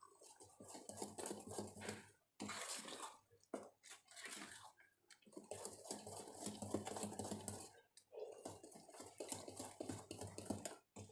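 Metal utensil whisking batter in a stainless steel bowl: faint wet scraping and clinking against the bowl, in spells broken by brief pauses. The batter is being beaten smooth to get rid of lumps.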